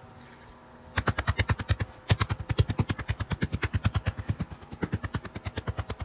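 A hand rapidly patting and rubbing a dog's chest and neck, making quick rhythmic thumps about eight to ten a second. They start about a second in, with a short pause near two seconds.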